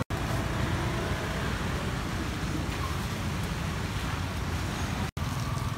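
Steady outdoor street noise with a continuous low traffic rumble, cut off briefly twice.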